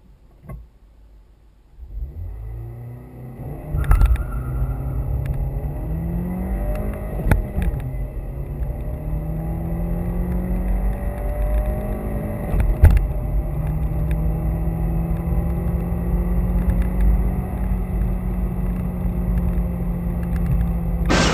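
2012 Renault Mégane TCe 130's 1.4-litre turbocharged inline-four, heard from inside the cabin, accelerating hard from a standstill through the gears of its six-speed manual. After a couple of seconds of low idle, the engine note climbs in pitch in each gear and is broken by sharp gear changes, three of them, with road noise growing as speed builds.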